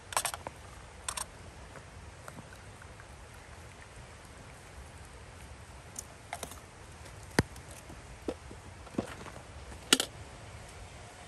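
Scattered glass-and-metal clinks and knocks as tea glasses are moved on a metal serving tray and a metal tea kettle is handled and set down. There are about eight short, sharp clinks, and the loudest knock comes about ten seconds in.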